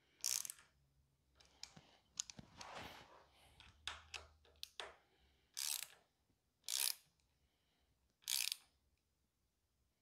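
Ratcheting torque wrench on a bicycle's handlebar stem clamp bolts, working them toward 5 Nm: short ratchet bursts a few seconds apart, with smaller clicks between.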